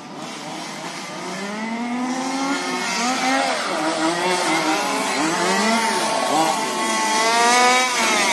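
Small two-stroke petrol engines of two 1/5-scale RC buggies, a Rovan Baja 29cc and a HARM, revving hard under full throttle. The pitch swings up and down as the throttle is worked. They grow steadily louder as the buggies close in and are loudest near the end.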